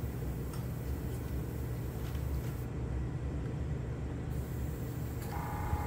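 Steady low rumble of room noise, with a few faint light clicks as small plastic model parts are handled and pressed into place. Near the end a steady pitched tone with overtones comes in and holds.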